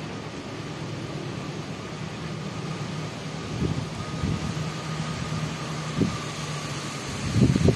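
Diesel-electric locomotive hauling the Argo Semeru express, approaching from a distance: a steady low engine drone with a thin high whine, slowly growing louder. A louder, uneven rumble sets in near the end.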